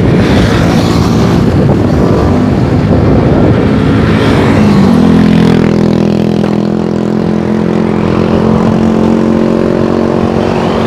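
Rushing noise from riding a bicycle along a road with motor traffic passing. About five seconds in, a motor vehicle's engine rises a little in pitch, then runs at a steady note close by.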